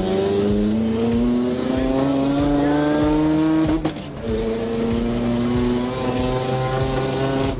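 Mazda RX-7's 13B twin-rotor engine under hard acceleration, heard from inside the car: its pitch climbs steadily for about four seconds, drops sharply at a shift or lift, then pulls again at a steadier pitch.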